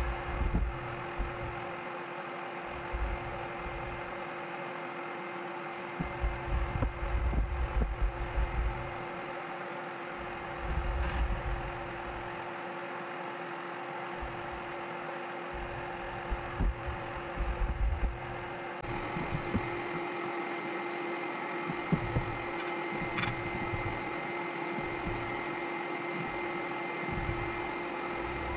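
A steady machine hum runs throughout, shifting slightly about two-thirds of the way through. Over it come irregular low bumps and knocks as wooden table legs and stretchers are handled and fitted together on a workbench.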